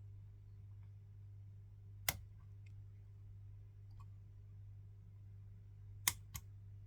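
Lock pick clicking inside a BSS pin-tumbler cylinder lock being single-pin picked: a few sharp clicks, the loudest about two seconds in and a quick pair near the end, with fainter ticks between them, over a steady low hum.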